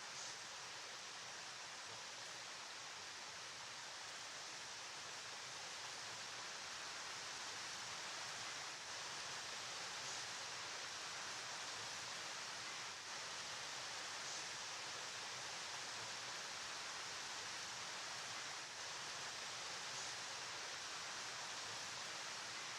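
River water flowing in a steady, even rush with no breaks.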